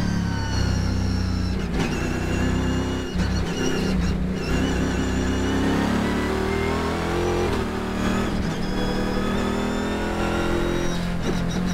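Cadillac CTS-V-R race car's engine heard from inside the cockpit. Its note drops as the car brakes for a corner, then climbs again as it accelerates hard.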